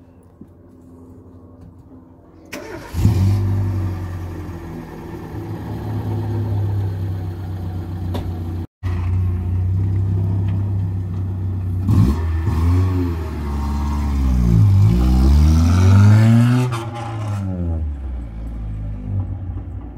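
Small hatchback's engine comes up loud and pulls away. It is revved, its pitch rising and falling several times as it accelerates through the gears, then it eases off near the end.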